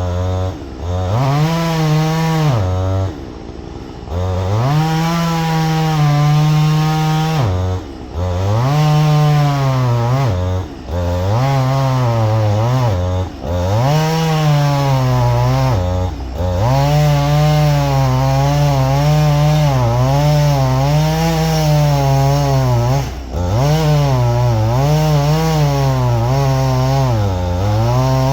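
Husqvarna 562 XP two-stroke chainsaw running at high revs and cutting wood, its pitch wavering under load and dipping briefly every two to three seconds as the throttle eases off.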